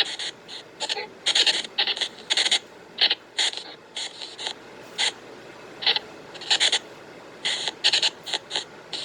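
Spirit box app on a phone playing through its speaker: short, uneven bursts of hissing static, about two a second, as it sweeps through white noise.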